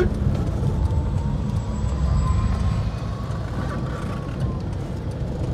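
A car's engine and tyres running on the road, heard from inside the cabin as a steady low rumble, with a faint thin whine in the middle.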